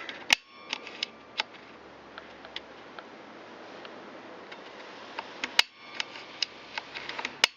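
A series of sharp metallic taps and clicks, some with a brief ring, from center punching the face of a sheared steel allen bolt before drilling it out. The loudest taps come about a third of a second in and again past the middle, with lighter ticks between.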